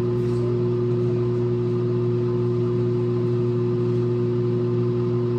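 A steady machine hum, unchanging throughout, made of a few constant low pitches over a low rumble.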